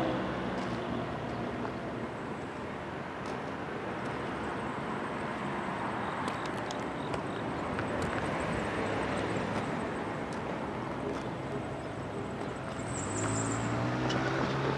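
Steady distant rumble of engines and traffic. A pitched engine drone fades away just after the start and swells again near the end, growing louder as it approaches.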